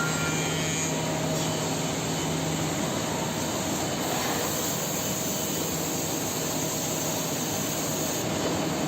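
Woodworking machinery running with a steady rushing noise, likely the six-sided CNC drilling machine and its dust extraction. A low hum stops about three seconds in.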